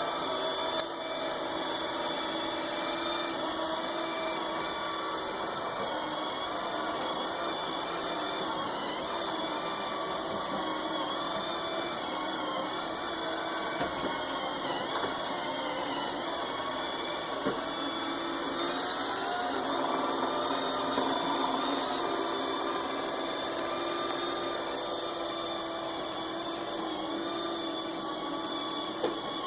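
Knockoff robot vacuum running with a steady, noisy whirring whine, its pitch shifting briefly about twenty seconds in, with a few brief clicks.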